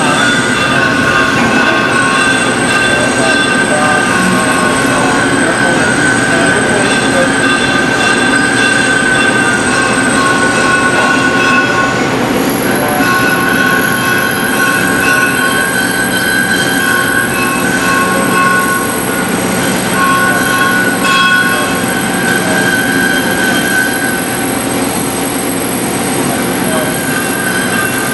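Machine tool cutting metal, turning square stock round: a steady running sound with a high, squealing cutting tone that breaks off and comes back several times.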